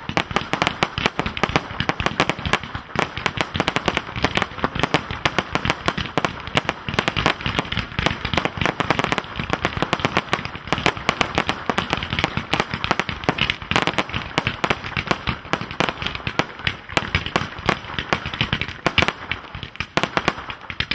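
Professional display fireworks firing in rapid, dense succession: shells launching and bursting many times a second with no pause, with some crackle among the reports.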